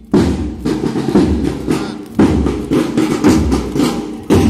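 Young Pioneer marching drum beating a steady marching beat, with a strong stroke about every two seconds and lighter strokes between.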